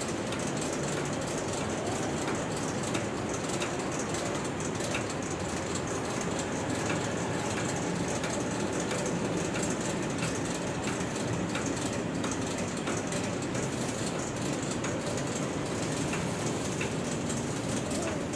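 Long conveyor belt on a plastic-bag printing line running steadily, a continuous mechanical rumble with faint scattered clicks.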